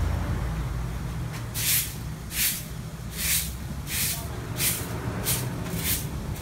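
Rhythmic short swishing strokes, about one every 0.7 s, starting about a second and a half in, over a low steady rumble.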